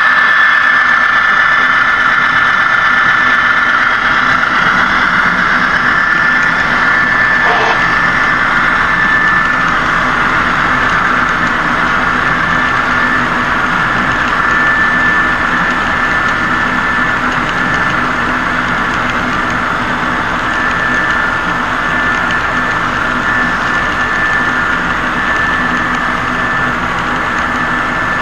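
HO scale model freight train running past, giving a steady engine-like drone with a constant high whine. It grows slightly quieter as the locomotives draw away and the long string of hopper cars rolls by.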